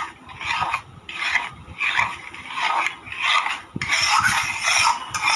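A spoon scraping and stirring a thick besan and ghee mixture in a cooking pan, in repeated strokes about two-thirds of a second apart.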